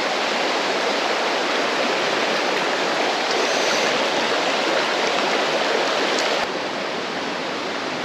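Small mountain creek running over rocks: a steady rush of water, a little quieter from about six and a half seconds in.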